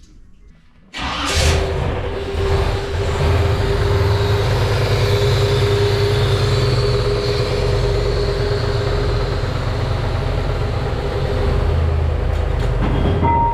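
1967 Chevy Nova's engine, fed by a Holley Sniper throttle-body fuel injection, catches suddenly about a second in and runs loudly and steadily with a constant tone over the rumble, then shuts off near the end.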